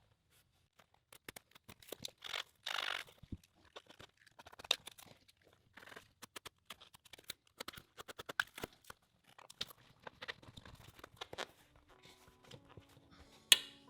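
Irregular clicks, taps and short rustles of hands working plastic-aluminium multilayer plumbing pipe and fittings. Background music comes in near the end.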